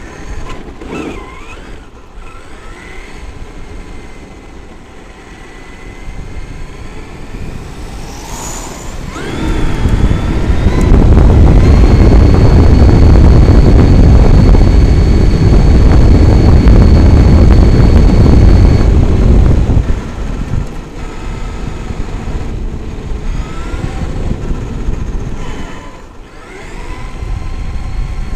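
Traxxas X-Maxx RC monster truck's brushless electric motor whining, rising and falling in pitch as it speeds up and slows. From about ten seconds in, a loud low rumble swamps it for about ten seconds under a steady high whine at top speed, then it drops back to quieter whining.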